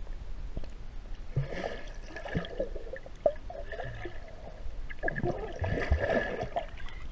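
Water heard underwater as a child swims close by: muffled sloshing and gurgling over a steady low rumble, busier twice, for about two seconds each time.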